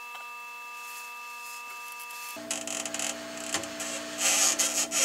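Hot air rework gun blowing on a PC motherboard to melt the solder, a steady hum with a thin whine. About halfway through, scraping and rubbing starts up and grows louder toward the end as components are worked loose from the board.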